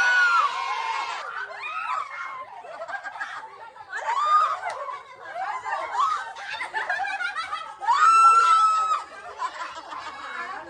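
A group of people laughing and squealing, with short high-pitched shrieks and one longer, loud shriek about eight seconds in.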